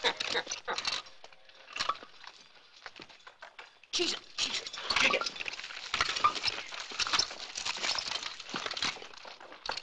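Hammers knocking on rocks with clinking and rattling of ball-and-chain irons, in many quick strokes; it goes quieter after the first second and comes back as a dense clatter about four seconds in.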